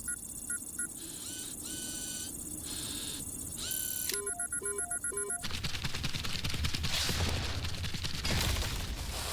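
Sound-effect electronic beeps and tones in short repeating patterns, with a quick rising whine about four seconds in. About five and a half seconds in the beeps stop and a dense noisy rumble takes over.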